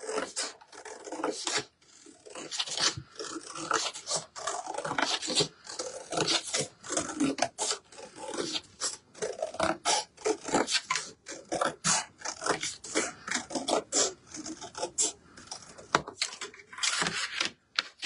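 Scissors cutting, a quick irregular run of snips and scraping strokes.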